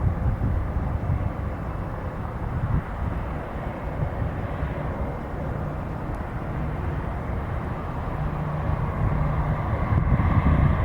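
Jet airliner engines heard across the airfield: a steady rumble that grows louder near the end.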